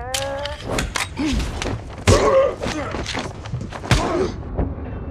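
Film fight sound effects: a quick run of punches and body thumps in a close hand-to-hand struggle, with men grunting between the blows. The hardest hits land about two seconds in and again near four seconds.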